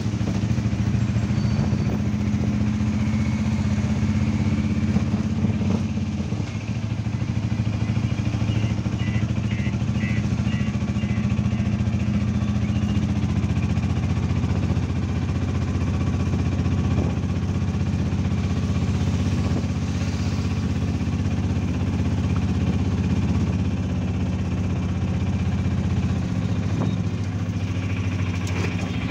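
Auto-rickshaw engine running steadily while riding, heard from on board, with road noise.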